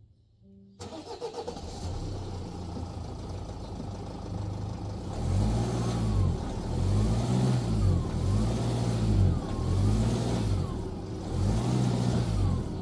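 Nissan X-Trail T31's engine running, then revved up and down over and over, about once every second and a half, from about five seconds in. The engine is being pulled against the newly fitted, applied handbrake to test how well it holds.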